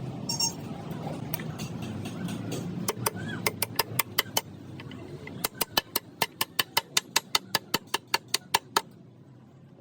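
A rapid run of sharp knocks, about five a second, over a low steady hum that fades out about halfway through.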